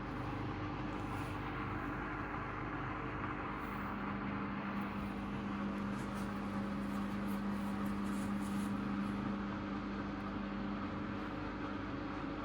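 Hoover Custom Vision washing machine running: a steady low hum over an even hiss, with faint light ticks.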